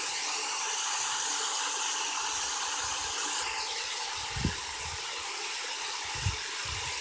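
Chicken, portobello mushrooms and onion sizzling steadily in a square nonstick pan over high heat.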